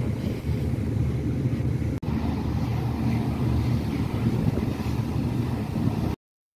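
Steady low rumble of a ferry's engines with wind on the microphone, heard from the open deck. It drops out for an instant about two seconds in and cuts off suddenly near the end.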